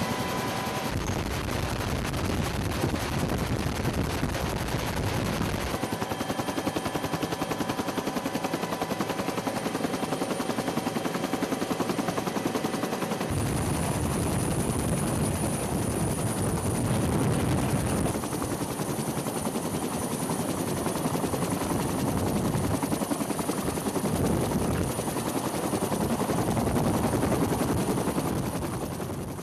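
Military helicopter running: rapid rotor blade chop over the turbine, steady and loud. The sound shifts abruptly about 6 and 13 seconds in, and from there a thin high turbine whine holds steady.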